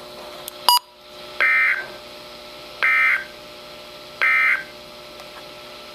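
Emergency Alert System end-of-message code: three short, identical bursts of warbling digital data tones, evenly spaced about a second and a half apart, marking the end of the alert. A brief click is heard a little under a second in.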